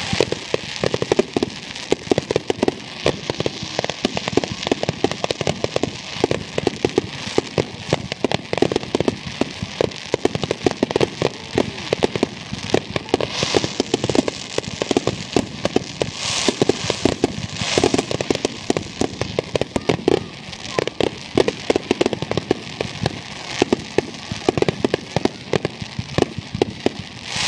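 Fireworks grand finale barrage: aerial shells bursting in rapid, overlapping bangs and crackling, with no break, and stronger bursts of high hiss and crackle in the middle.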